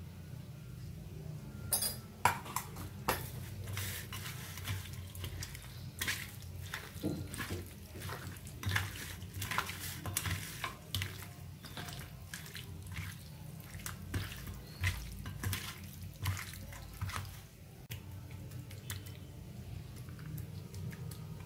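A hand mixing raw chicken pieces with curd and spices in a stainless steel bowl: irregular wet squelches and slaps, with clicks against the metal bowl, stopping shortly before the end. A steady low hum runs underneath.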